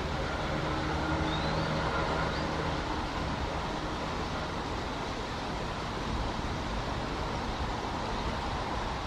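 Steady road traffic rumble, with a vehicle engine hum in the first few seconds that then fades into the general noise. Two faint short high chirps come about one and two seconds in.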